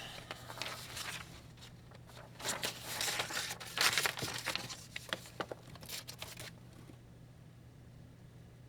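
Irregular rustling and crinkling handling noise for about the first six and a half seconds, loudest in the middle, then only a steady low hum.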